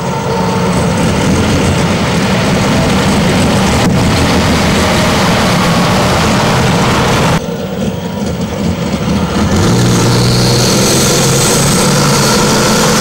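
Multi-engine modified pulling tractor running, loud and steady with a deep engine hum. There is a short break about seven seconds in, and from about ten seconds the note settles into a steadier, stronger drone.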